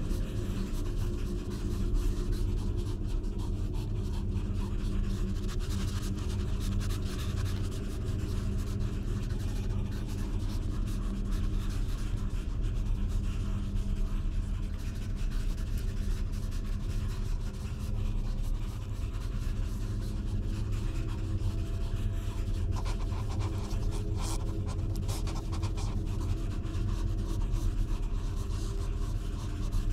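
Low, steady droning ambience of a horror film's soundtrack: sustained low tones with a faint scratchy hiss over them.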